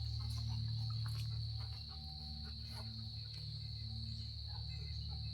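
Insects trilling in one continuous, steady high drone, with a steady low rumble underneath and a few faint ticks.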